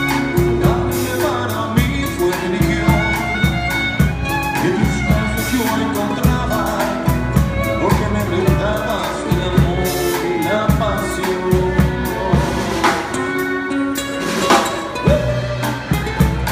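A live acoustic band playing: a violin over two acoustic guitars and a drum kit keeping a steady beat.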